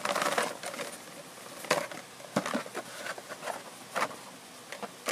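Cardboard shipping box and blister-carded action figures being handled: a burst of cardboard rustling and scraping at the start, then a few sharp clicks and taps of card and plastic knocking against the box.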